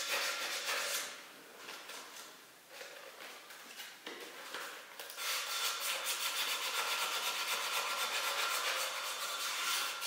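Handheld electric power tool scouring the cylinder bores of a Belarus 820 tractor engine block: a harsh, abrasive scraping with a steady motor whine behind it, cleaning the liner seats before the cylinders are pressed in. It eases off about a second in, picks up briefly around four seconds, and runs hard again from about five seconds on.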